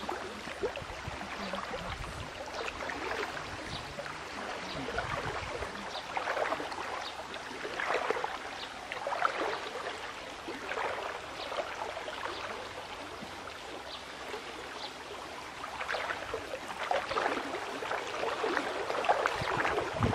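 Stream water sloshing and splashing in small, irregular splashes around a man wading chest-deep as he works a fishing net against the bank.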